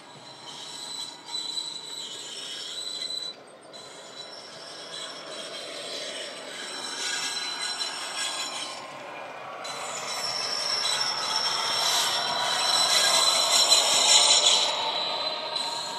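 Sound decoder in a Bachmann OO-gauge Class 66 model locomotive playing a Class 66 diesel sound file through its ESU speaker, together with the model's wheels running on the track. It includes steady high-pitched tones and grows louder as the locomotive approaches, loudest as it passes close by near the end.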